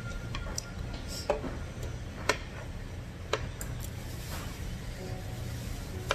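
Metal utensils clicking against a cast-iron skillet and bowls: a few sharp clicks, the strongest about a second apart, over a steady low hum.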